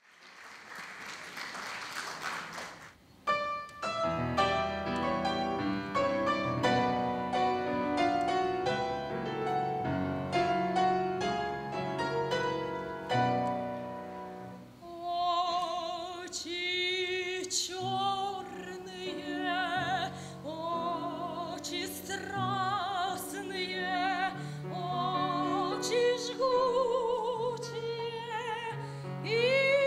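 A short burst of applause, then a grand piano introduction from about three seconds in. About halfway through, an operatic soprano comes in, singing with a wide vibrato over the piano accompaniment.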